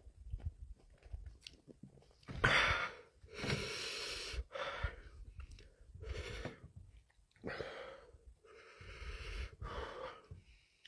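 A man breathing hard in and out through his mouth, rough, hissing breaths about one a second, after faint chewing in the first two seconds; the heavy breathing is his reaction to the heat of the Carolina Reaper peppers he is eating.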